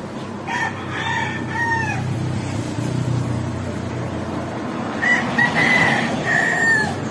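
A rooster crowing twice, each crow a few short syllables ending on a long, falling note, with a low rumble between the two crows.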